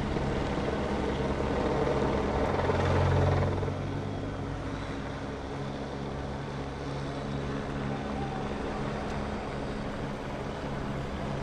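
Steady engine drone, a low hum that swells about two to three seconds in and then runs on evenly.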